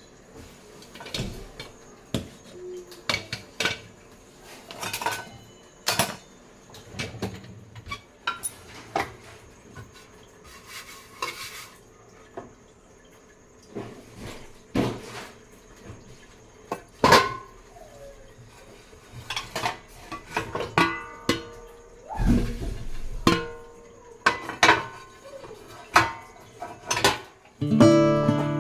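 Plates and cutlery clinking and clattering as they are handled, in many separate sharp knocks. Guitar music comes in near the end.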